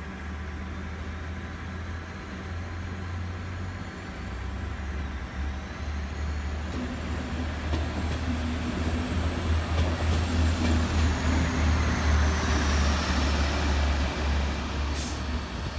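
Network Rail Multi-Purpose Vehicle (MPV) with tank modules passing slowly through the station, its diesel engines running with a low steady drone that grows louder as it draws level. A faint high whine rises and later falls, and a short sharp click comes near the end.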